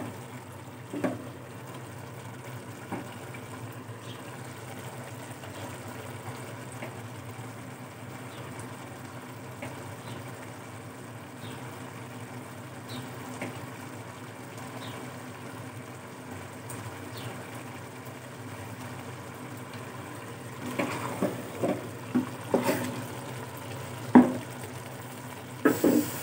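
Pulao rice simmering in an aluminium pot as the last of the water cooks off: a faint, steady bubbling and sizzle over a low hum. A spoon knocks against the pot about a second in, and several sharp knocks come near the end.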